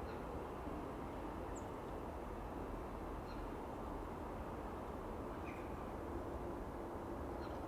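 A few short, high bird chirps, spaced a second or two apart, over a steady low background rumble.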